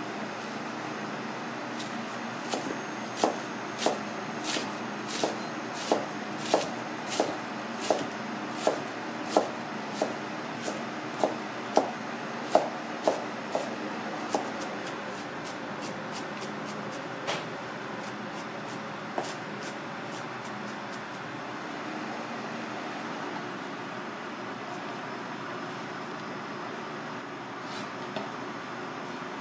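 Kitchen knife chopping cabbage on a cutting board: sharp, even strokes about one and a half a second for some twelve seconds, then stopping. A few single knocks follow as the chopped cabbage is gathered, over steady background noise.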